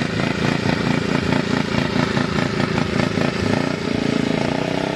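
Racing riding lawn mower engines running hard, several at once, their pitch rising and falling as they go around the track.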